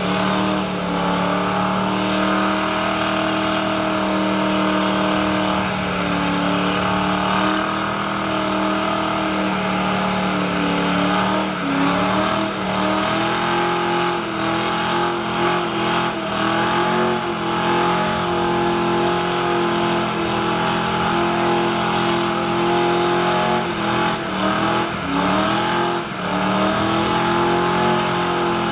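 Car engine held at high revs through a long burnout, tyres spinning against the pavement. The revs sag and climb back a few times, about 6, 12 and 25 seconds in.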